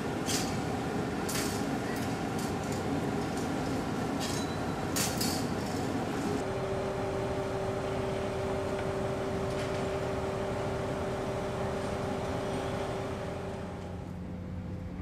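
Steady machinery hum from a moored warship, with scattered sharp clanks and knocks over the first six seconds. The hum takes on a fixed, even pitch about six seconds in. It changes to a lower steady hum near the end.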